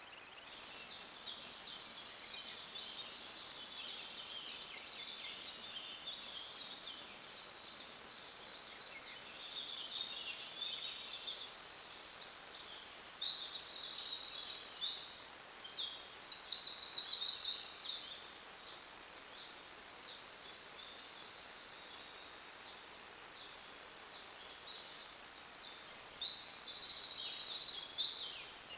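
Several woodland songbirds singing at once, their songs overlapping, with louder trilled phrases now and then.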